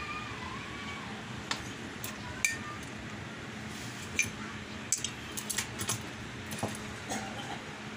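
Scattered light clicks and clinks of a glass lampshade, its wiring and LED board being handled, over a steady low hum.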